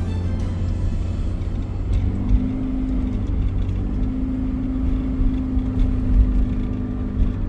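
In-cabin sound of a 2015 Toyota Prius driving up a steep, winding paved road: a steady low rumble of road and drivetrain. A steady hum joins about two seconds in, breaks off briefly, then returns.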